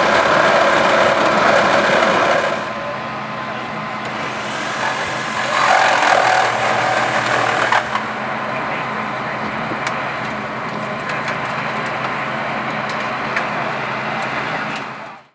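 An engine running steadily, a little louder for the first couple of seconds, with a few sharp clicks over it; the sound cuts off abruptly at the very end.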